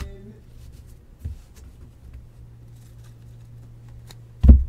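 Trading cards being handled and sorted by hand on a table: light card rustle and small clicks over a steady low hum, a dull thump about a second in, and a much louder thump near the end.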